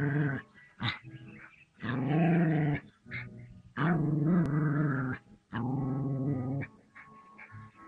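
Small terrier growling at a rearing cobra: four long, drawn-out growls, each about a second long, with short pauses between.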